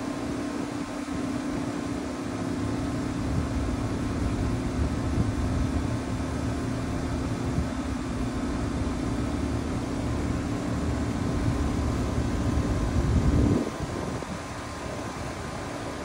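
Rooftop heat pump outdoor unit running, its compressor making a loud steady hum with a rough low rumble under it: the compressor noise the unit is being filmed for. Near the end the sound briefly rises, then the rumble drops away.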